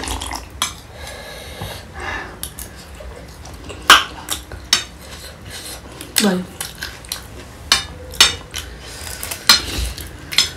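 A steel spoon clinking and scraping against a ceramic plate while food is stirred and scooped: irregular sharp clinks, the loudest about four seconds in.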